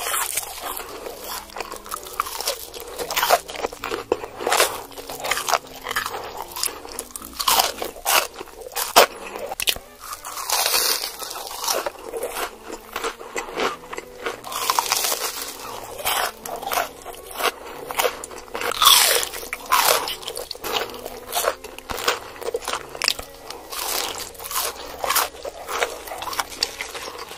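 Close-miked biting and chewing of crumb-coated fried onion rings: loud, crisp crunches, several a second, with a brief pause now and then.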